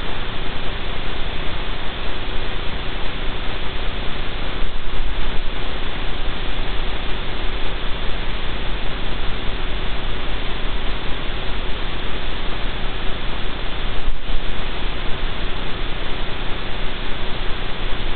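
Steady hiss of static with a constant faint hum and a low rumble underneath, unchanging throughout.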